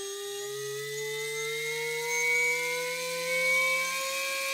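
Mini-quad brushless motor spinning a propeller, its whine rising steadily in pitch as the throttle is raised.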